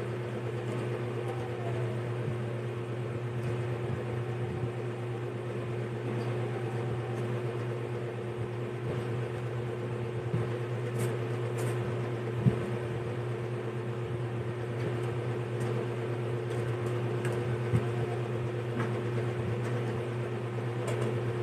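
A steady low appliance hum, like a fan, runs throughout, with faint scattered crunches from chewing hard raw carrot.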